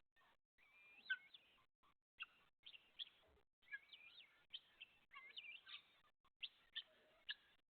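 Faint bird chirping: many short, high chirps and quick gliding whistles following one another.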